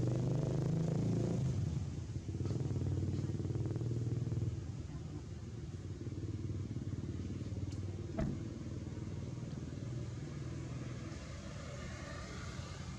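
A motor vehicle engine running steadily nearby, a low rumble that is louder for the first four or five seconds and then eases off. A single short knock sounds about eight seconds in.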